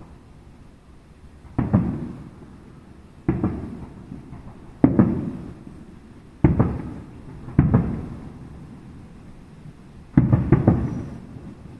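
Aerial firework shells bursting overhead: a series of sharp booms every one to two seconds, each trailing off in a rolling echo, with a quick cluster of three bursts near the end.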